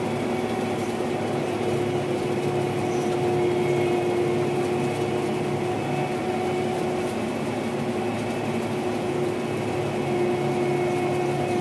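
Gleaner R72 combine running steadily while threshing wheat, heard from inside its cab: a constant drone with a few steady whining tones over a low rumble.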